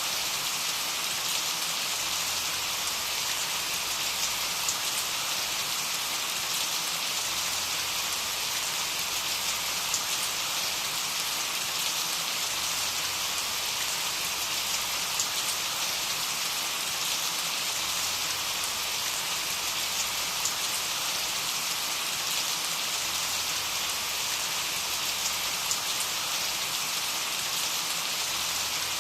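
Steady rain falling, an even hiss of many small drops with faint scattered patters.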